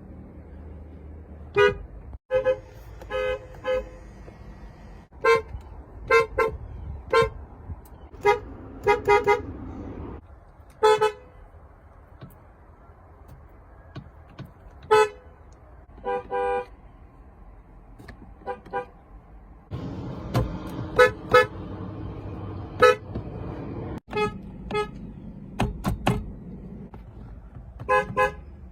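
Car horns tooting in short beeps, singly and in quick runs of two to four, at irregular intervals, with a couple of longer honks. A steady low rumble runs underneath.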